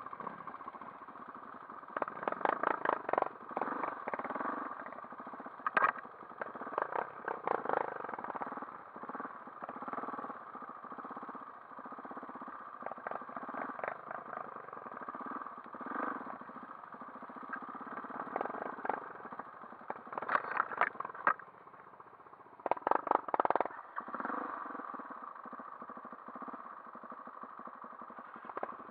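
Dirt bike engine running at low trail speed, with several loud bursts of rattling clatter.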